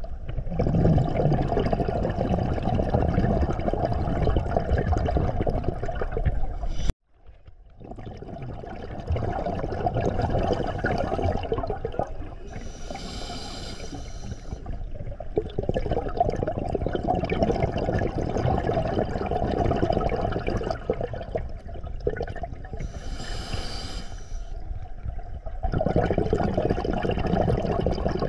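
Scuba breathing heard underwater through an open-circuit regulator: long stretches of exhaled bubbles, broken twice by the short hiss of an inhalation, about twelve seconds in and again near twenty-three seconds. The sound drops out briefly about seven seconds in.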